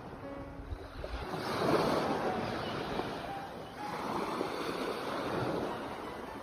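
Sea water washing in two swells, with wind on the microphone.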